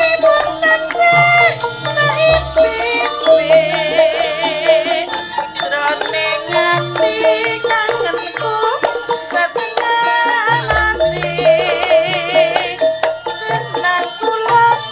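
Javanese gamelan playing a passage of a langgam song: layered pitched melody over a steady pulse, with a wavering high melodic line twice and deep low strokes about two seconds and eleven seconds in.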